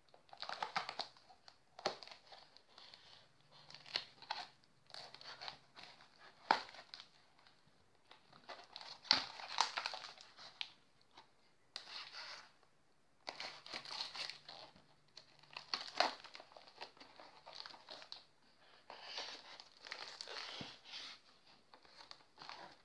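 Clear plastic wrap around a cardboard parcel crinkling and tearing in irregular bursts as it is cut with a knife and pulled by hand, with a few sharp clicks among the rustling.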